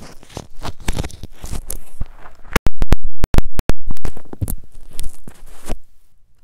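Rubbing, crackling and knocking noise on a newly plugged-in headset microphone. In the middle comes about a second and a half of very loud, distorted bursts that cut in and out.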